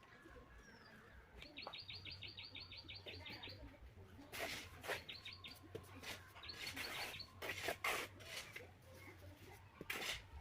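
A small bird chirping in quick repeated runs of about six short high notes a second, three runs in all. Several louder short knocks or scrapes come in among them, around the middle and again near the end.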